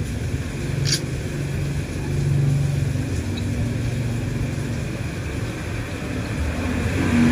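Road traffic on a wet street: a low engine hum that swells and fades as vehicles pass, over a steady hiss, with a brief click about a second in.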